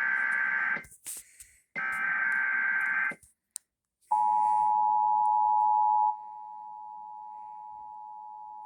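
Emergency Alert System broadcast: two short bursts of buzzy digital SAME header data, a pause, then the two-tone EAS attention signal starting about four seconds in. The tone sounds loud for about two seconds, then drops to a much lower level and keeps going.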